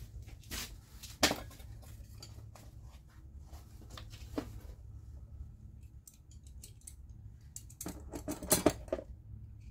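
Metal hand tools clinking and clanking as wrenches are handled and fitted in a cramped engine bay. There is one sharp clink about a second in and a burst of louder clanks near the end.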